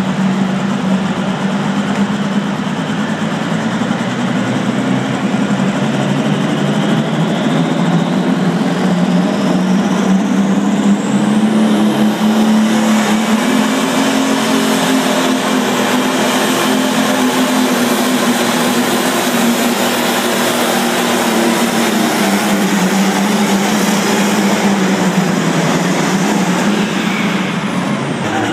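Pulling tractor's engine running loudly and steadily at high revs, its pitch lifting slightly about halfway and dropping back near the end. A high whine climbs steadily over the first dozen seconds.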